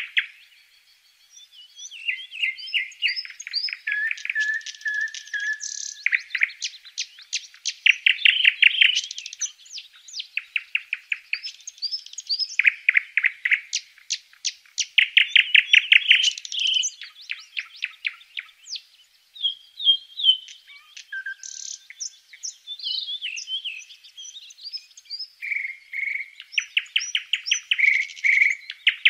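Blue tit nestlings begging in a nest box: bouts of fast, high chirps repeated many times a second, loudest in two spells near the middle, the brood calling for food as the parents come in to feed them.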